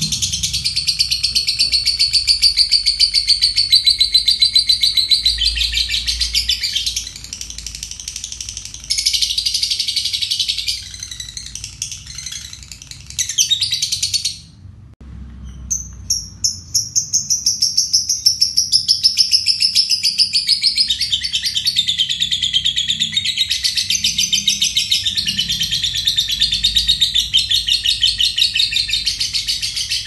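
Caged lovebird giving its long ngekek: a fast, unbroken chattering trill, high-pitched. It breaks off briefly about halfway through and then starts again.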